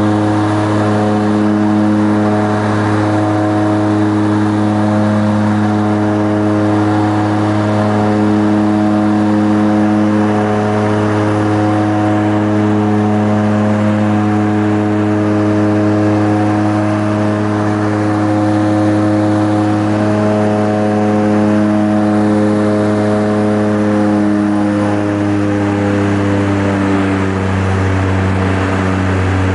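Seaplane's propeller engines droning steadily in flight, heard inside the cabin: a strong low hum with a stack of steady tones above it. The pitch drops slightly near the end.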